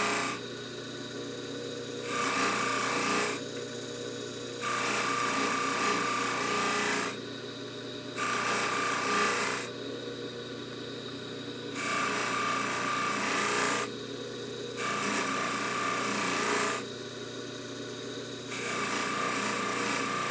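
Jewelry polishing buffer motor running steadily while a piece of hollow gold chain jewelry is pressed against the spinning wheel in repeated passes, each pass a rasping hiss of about two seconds, about six times.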